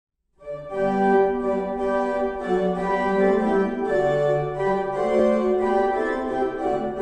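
Organ playing slow, held chords. It starts from silence about half a second in.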